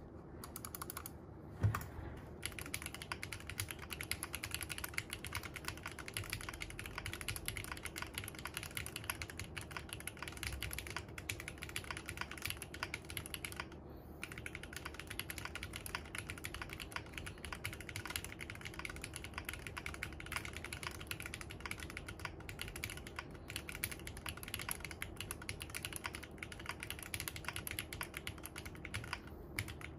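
Mechanical keyboard being typed on steadily: a dense run of key clacks, starting with a single louder clack in the first two seconds and pausing briefly about 14 seconds in.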